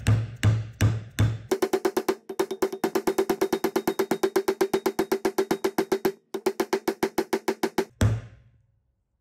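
Percussive music: a few slow, heavy drum hits, then a fast, even run of pitched drum strokes at about eight a second. The run breaks off briefly and ends with one last hit.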